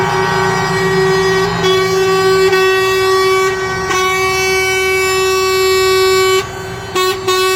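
Several vehicle horns blown together in one long, steady, blaring chord. It cuts off about six seconds in and is followed by a couple of short toots. This is a convoy sounding its horns in a farewell tribute, with a low engine rumble underneath.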